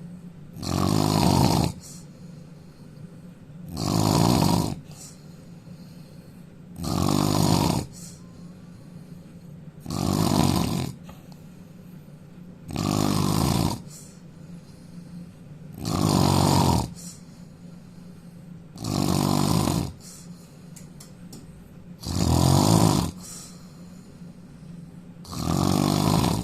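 A man snoring loudly, steady and regular: nine snores, each about a second long, one roughly every three seconds.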